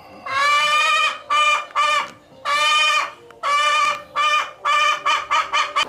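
Domestic hen cackling: a run of loud calls, a few long drawn-out ones among short clucks that come quicker and quicker toward the end.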